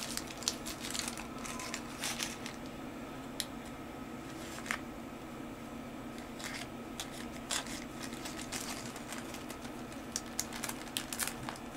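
Small zip-lock plastic bag crinkling and rustling in the hands, with scattered light clicks, as a coil of thread is pushed in and the zip is pressed shut near the end.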